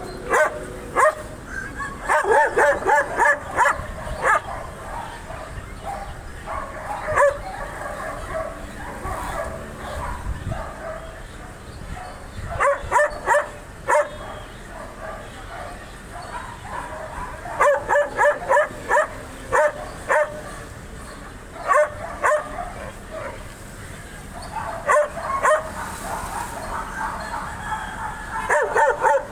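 Dog barking loudly in quick volleys of several barks, recurring every few seconds, with quieter barking and yelping continuing between the volleys.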